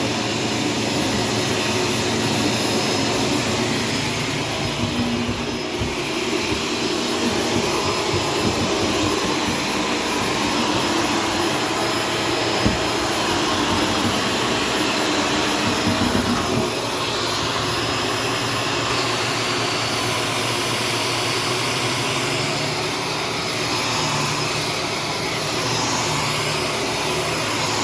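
Shark upright vacuum cleaner running steadily while vacuuming a bathroom floor, its motor giving a continuous whooshing whine. There is a single click about halfway through, and the tone shifts a little just after that.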